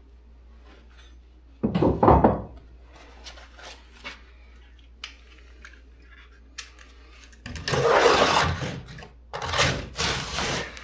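Demolition noise: building material being torn out and dropping, in three loud scraping, crashing bursts about two, eight and ten seconds in, with small knocks between.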